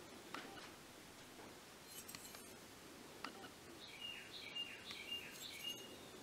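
A songbird chirping, a quick run of short high notes about four seconds in, over faint steady background noise, with a few light clicks.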